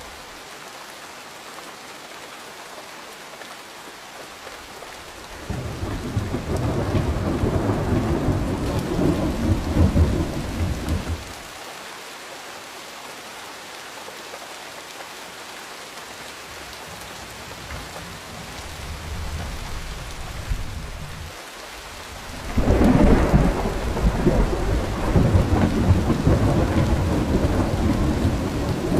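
Steady rain with two long rolls of thunder: the first swells in about five seconds in and lasts about six seconds, and the second, louder one breaks about 22 seconds in and is still rumbling near the end. A faint low rumble comes between them.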